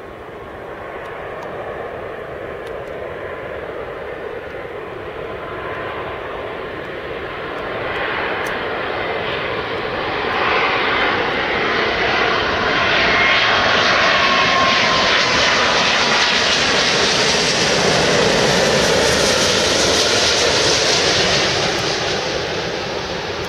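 Boeing 777 twin-engine jet airliner on final approach, its engine noise swelling steadily over about twelve seconds as it comes close, with a thin whine over the rushing roar, then holding loud and easing slightly near the end as it descends toward the runway.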